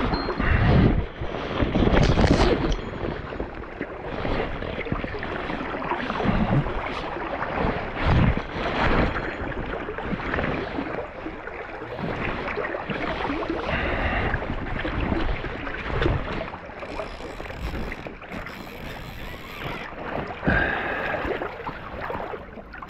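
Fast river water rushing around a wading angler, with wind buffeting the microphone in uneven gusts.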